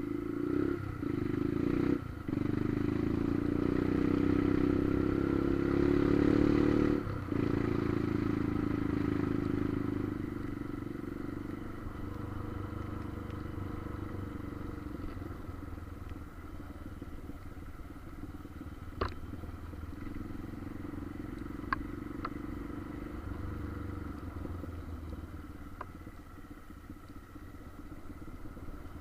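Motorcycle engine running while riding, louder over the first several seconds with two brief dips, then settling to a steadier, softer drone. A few sharp clicks come through in the second half.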